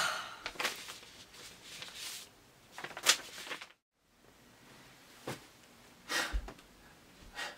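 A few short, soft noises from a person breathing out and shifting in his seat, the loudest about three seconds in. Just before the middle the sound cuts out completely for a moment.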